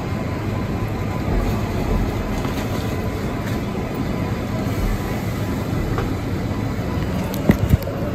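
R62A subway car running along the track, heard from inside the car: a steady rumble and rattle, with a couple of sharp wheel clacks near the end.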